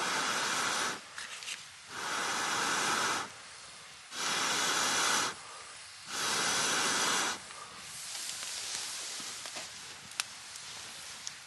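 Four hissing blasts of rushing air, each about a second long, coming about every two seconds, followed by a few seconds of quieter hiss.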